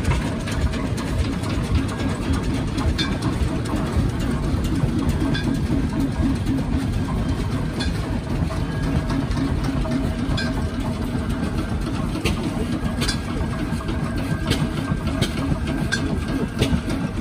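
Steam traction engine running stationary, belt-driving a stone crusher: a steady low rumble of machinery with scattered sharp clicks and knocks.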